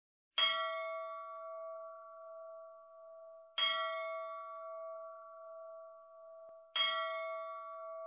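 A bell struck three times, about three seconds apart. Each strike rings on with a steady tone that wavers slowly in loudness as it fades.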